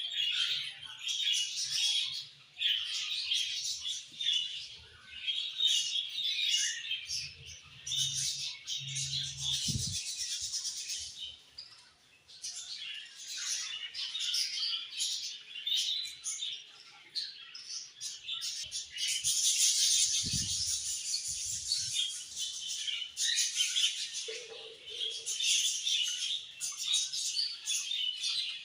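Several budgerigars chirping and warbling together in a continuous, overlapping chatter of short high chirps.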